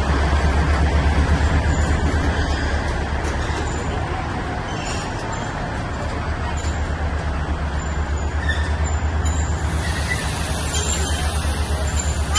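Steady low rumble of a moving narrow-gauge toy train, with a fast, even pulsing in its loudness.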